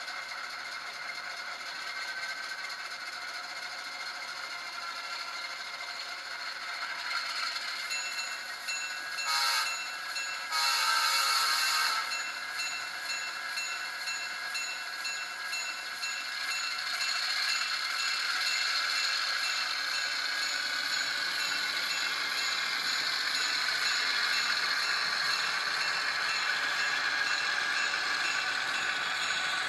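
Diesel engine sound from the ESU LokSound decoder in a Rapido EMD E8A model locomotive, played through the model's onboard speaker: idling, then throttling up and growing louder as the train pulls away. Two short hissing bursts come about nine and eleven seconds in.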